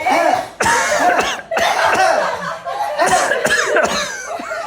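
Several people coughing at once, many loud acted coughs overlapping one another with only brief breaks.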